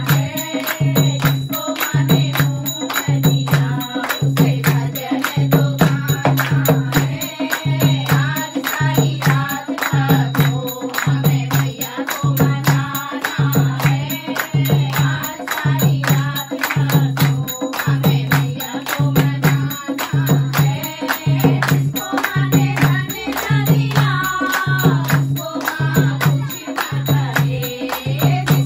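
Group of women singing a Hindu devotional bhajan together, with hand clapping and a dholak drum keeping a steady low beat a little faster than once a second.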